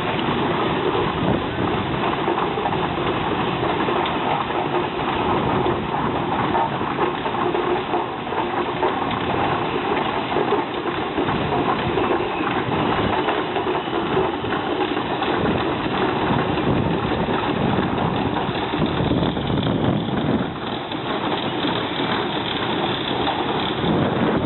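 Keck Gonnerman steam traction engine running steadily as it drives along under its own steam.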